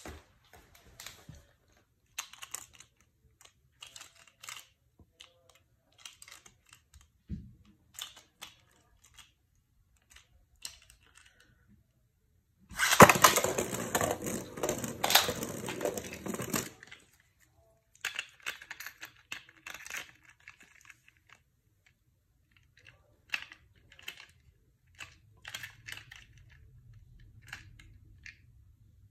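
A Beyblade spinning top launched into a clear plastic stadium, spinning and scraping on the stadium floor for about four seconds, then stopping suddenly. Before and after, scattered clicks and rattles of the plastic top being handled and fitted to its launcher.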